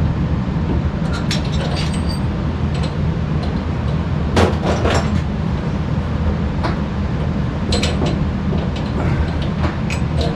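A steady low rumble, with scattered clinks and knocks of metal furnace parts and pipe being handled and fitted, a cluster of them about four and a half seconds in.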